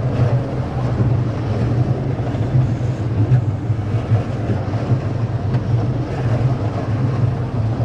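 Roller coaster lift chain running steadily as the train is hauled up the lift hill, a constant low drone with rattling clatter over it.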